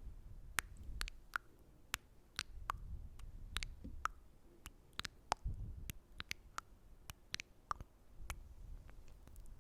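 Close-mic ASMR mouth sounds: irregular sticky, wet clicks and smacks, about two or three a second, with low rumbles at times.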